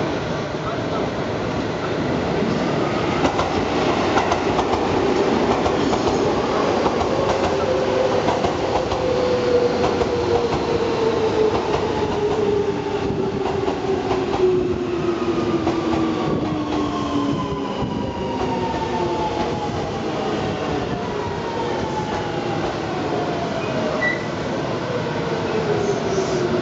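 Seibu 6000 series electric train pulling into a station: wheels clattering over points and rail joints, with the VVVF inverter traction-motor whine falling in pitch as the train brakes for its stop.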